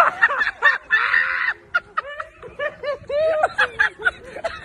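A person laughing hard in short, repeated bursts of snickering.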